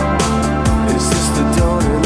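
Upbeat dance music with a steady beat, about two beats a second, over a bass line.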